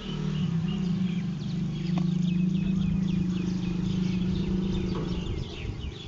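A loud, low, steady hum with a fast flutter, which stops about five seconds in, under small birds chirping in quick repeated notes.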